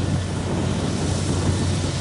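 Kubota DC70 Plus combine harvester running steadily: a constant low engine hum under a broad, even hiss of machinery noise.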